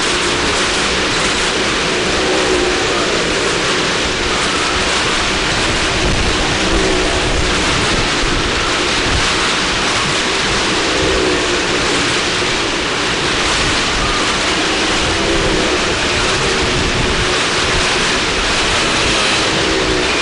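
Engines of cars and motorcycles circling the wall of a well-of-death drum: a loud, continuous, distorted wash of engine noise, with engine pitch rising and falling over and over as the vehicles sweep past.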